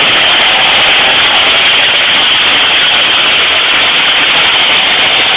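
1968 Chevrolet pickup's engine running hard under load as it drags a weight sled in a truck pull: a loud, steady, unbroken noise, muddied by the phone's microphone.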